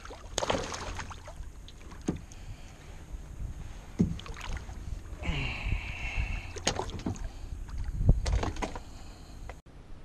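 Handling noises in a fishing kayak: scattered knocks and clunks against the hull over a steady low rumble, with a brief hissing whirr about five seconds in.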